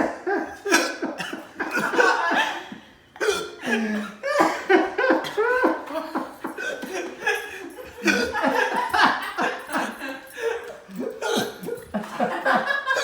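Several people laughing over a man's repeated hiccups, brought on by the heat of a habanero pepper he has just eaten.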